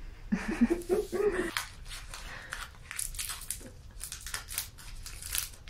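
A snack-bar wrapper crinkling and crackling as it is torn open by hand, with many quick sharp crackles from about two seconds in. A short vocal sound comes near the start.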